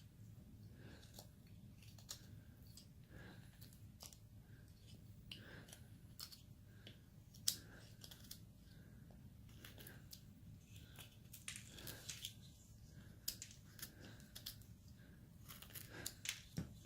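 Carving knife slicing small cuts into basswood: a string of faint, irregular short cutting and scraping strokes, a few of them sharper than the rest.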